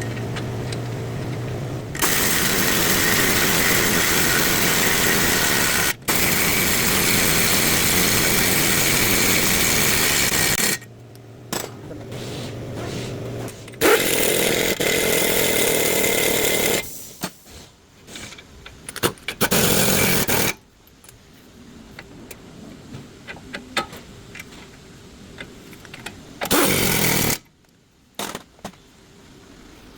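A power tool running in several bursts, the first lasting about nine seconds and the later ones shorter, with a steady low hum in some of the gaps and scattered clicks and clatter in between.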